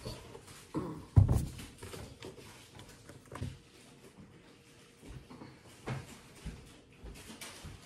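Grocery packages being picked up and set down on a table: scattered knocks and rustling, with the loudest thump about a second in.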